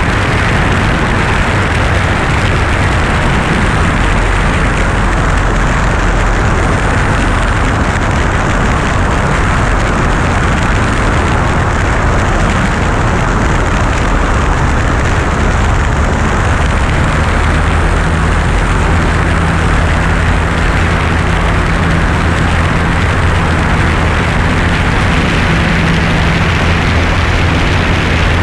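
Single-engine light airplane's piston engine and propeller running steadily at low power as it rolls along the runway, heard from outside on the wing with steady wind noise over the microphone. The low engine hum grows clearer about halfway through.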